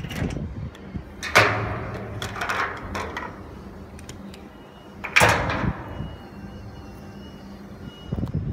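Two loud metallic bangs about four seconds apart, each ringing out for about a second, with lighter knocks between: a ladder and hand tools knocking against the corrugated steel wall of a shipping container as someone climbs.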